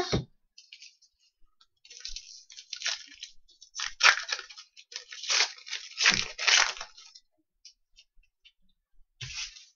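A trading-card pack wrapper crinkling and cards rustling as hockey card packs are torn open and handled, in irregular bursts that are loudest in the middle.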